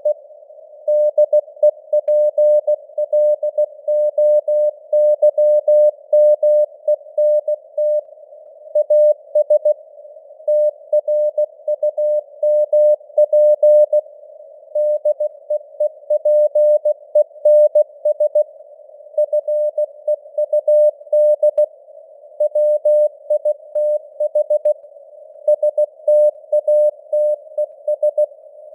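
Morse code at 16 words per minute: a tone of about 600 Hz keyed in dots and dashes. It sits in a narrow band of simulated radio noise, and the signal strength fades up and down (QSB).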